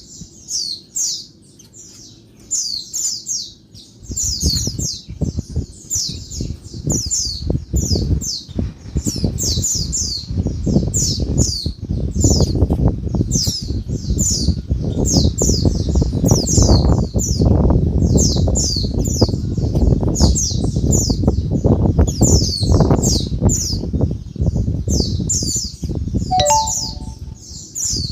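Female white-eyes (pleci) giving a rapid, noisy chatter of high downslurred chirps, several a second, used to lure male white-eyes into singing. From about four seconds in, a low rumbling noise runs underneath the calls.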